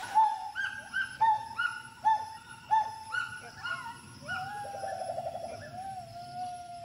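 Gibbon calling: a quick series of short hooting notes, about two a second, each swooping up and dropping away, then a longer note with a fast quavering trill about four seconds in, and a long steady held note near the end.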